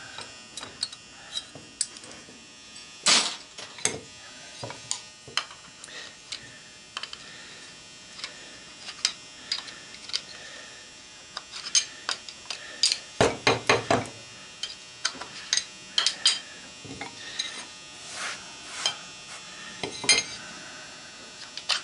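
Screwdriver scraping and picking inside a cast aluminium motor end bell, digging out the oil-impregnated felt around the bearing, with light metal clinks and taps of the tool against the casting. Irregular, with a louder knock about three seconds in and a cluster of louder knocks around thirteen to fourteen seconds.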